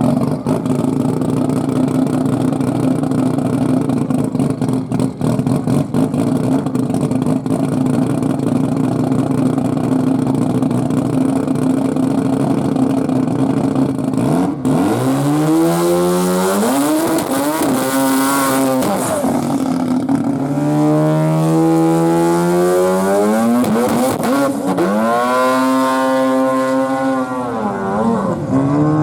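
Twin-turbo 13B rotary engine idling with a steady, rough note, then revved up and back down three times in its second half.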